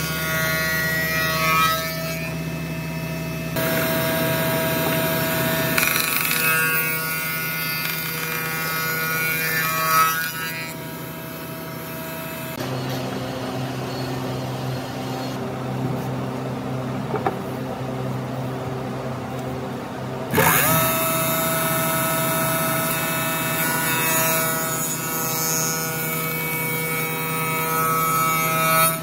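Spindle moulder (wood shaper) with a roller power feeder running and cutting hardwood boards fed along its fence: a steady machine whine with cutting noise. The sound changes abruptly three times, duller and lower for several seconds in the middle.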